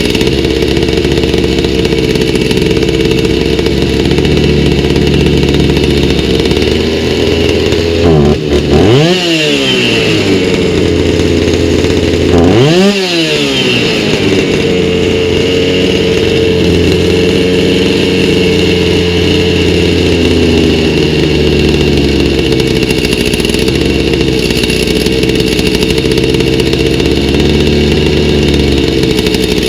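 Stihl MS290 chainsaw's two-stroke engine idling steadily on a newly fitted aftermarket carburetor, with its low-speed screw left at the factory setting. Twice the throttle is blipped briefly, the revs rising sharply and falling back to idle.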